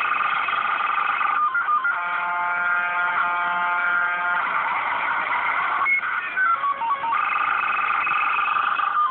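An unidentified tonal call played back through a small digital voice recorder's speaker. It repeats about every five seconds: a quick run of notes stepping down in pitch, then a long held chord of several steady tones.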